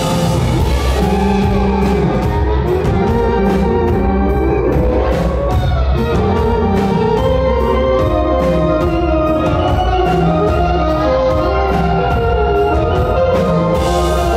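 Live garage-rock band playing without vocals: an electric organ holds sustained chords over steady drums and a heavy low end.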